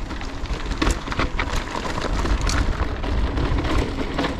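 Mountain bike riding over rough, muddy ground: a steady low rumble of wind on the microphone, with a constant patter of clicks and rattles from the tyres and bike.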